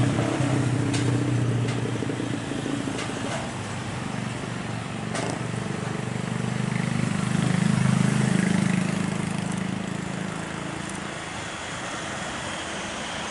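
Steady engine rumble that swells about eight seconds in and then eases off, with a few sharp clicks in the first five seconds.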